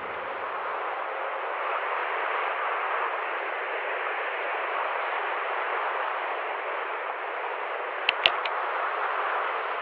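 Steady hiss of static with no tune or voice, broken by a few sharp clicks close together about eight seconds in.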